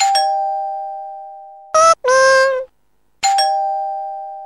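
A doorbell-style chime sound effect ringing twice, each time fading out over about a second and a half, with a short high-pitched voice-like cartoon sound between the two chimes.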